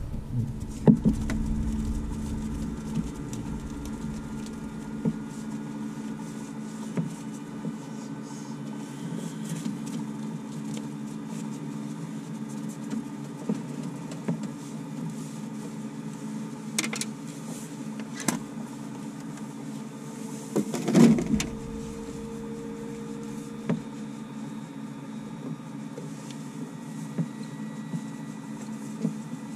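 Steady electrical hum from a light aircraft's cockpit equipment, switched on while the engine is stopped. Scattered light clicks and rustles sound over it, with a louder knock about 21 seconds in.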